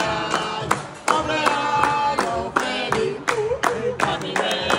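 A group of voices singing a birthday song together while clapping hands in a steady beat, about three claps a second.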